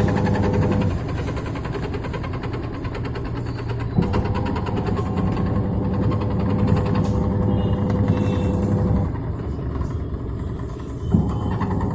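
Samsung WA82VAL top-loading washing machine in its spin cycle, vibrating and making noise: a steady low hum with a fast rattle, and a sharp knock about 4 s in and again near the end, after each of which it gets louder. The owner takes the heavy vibration and noise for worn suspension shock absorbers.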